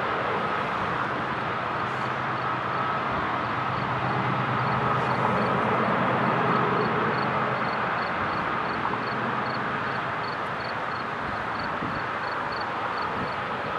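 Distant diesel locomotives of a heavy freight train working slowly upgrade: a steady low engine rumble under a broad noise, swelling slightly around the middle. A faint high ticking repeats about three times a second throughout.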